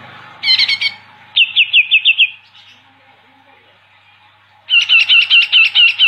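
A caged cucak ijo (green leafbird) singing fast trilled phrases. There is a short burst near the start, then a run of six quick down-slurred notes. After a pause comes a long, rapid rolling run of repeated notes near the end.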